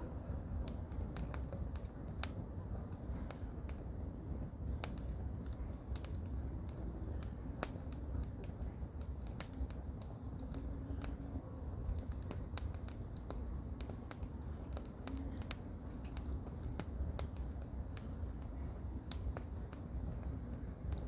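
Firewood burning, with frequent irregular sharp crackles and pops, over a steady low rumble of wind.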